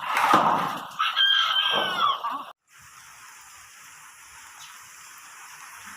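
A rooster crowing loudly for about two and a half seconds, then cut off abruptly, leaving a faint steady hiss.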